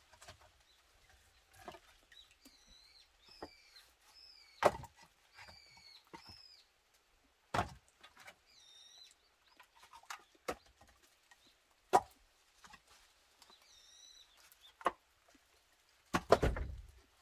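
Small birds chirping in short high calls, with several sharp knocks a few seconds apart; the last knock near the end is heavier and longer.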